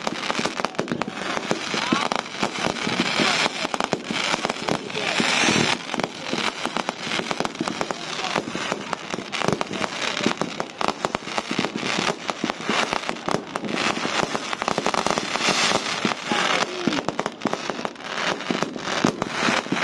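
Aerial fireworks going off in a continuous, rapid run of bangs and crackling bursts.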